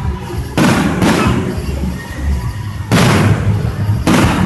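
Fireworks going off: three sudden bangs, about half a second in, near three seconds and just before the end, each fading away over about a second, over a steady low rumble.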